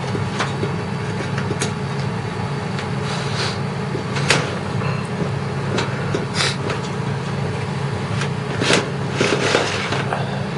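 Scattered clicks and knocks of computer parts being handled inside a desktop PC case, over a steady low hum.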